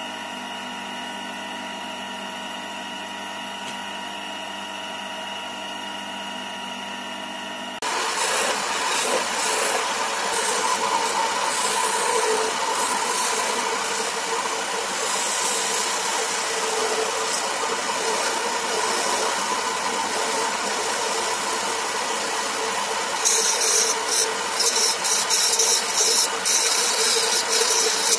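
A wood lathe running with a steady hum, which gets louder and noisier about eight seconds in. Near the end a gouge cuts into the spinning wood spindle, adding a loud, rough, uneven cutting noise as shavings come off.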